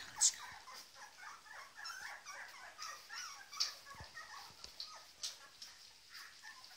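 A litter of two-and-a-half-week-old puppies squeaking and whimpering: many short, high squeaks overlapping one another, with a few sharp clicks.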